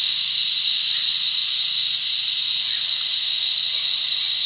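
Chorus of cicadas: a loud, steady, high-pitched shrill drone that holds without a break.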